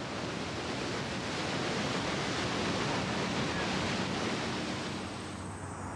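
A steamboat's stern paddlewheel churning the river: a steady rushing splash of water that swells a little midway and eases near the end.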